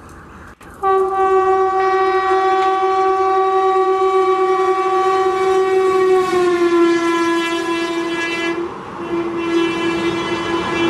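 WAP-4 electric locomotive's horn sounding one long blast, starting suddenly about a second in and dropping slightly in pitch about six seconds in as the locomotive goes by, with a short break near the end. Under it grows the rushing rattle of the passenger coaches passing at speed.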